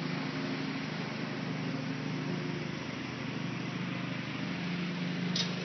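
Riding lawn mower engine running steadily under mowing, a continuous even hum, with one brief high click near the end.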